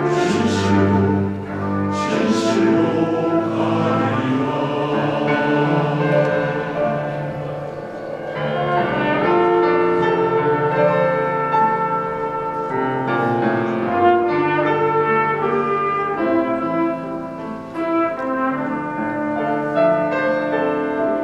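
Men's choir singing a Korean sacred choral anthem in sustained chords, with instrumental accompaniment.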